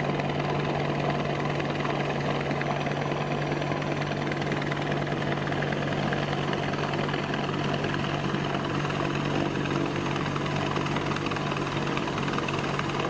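AH-64 Apache helicopter's rotors and twin turboshaft engines running as it hovers in to land, a steady low drone with a rushing noise over it.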